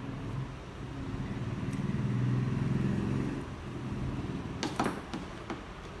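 A low rumbling hum swells and fades over a few seconds. Then come a few sharp clicks and knocks, about four seconds in, from handling the opened laptop's plastic chassis.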